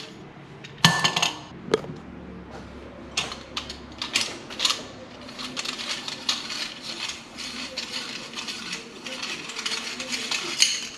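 Metal parts of a kitchen sink basket strainer clicking and clinking as its retainer screws are loosened and the strainer is taken apart by hand. A scatter of small metallic clicks, the loudest about a second in with a brief ring.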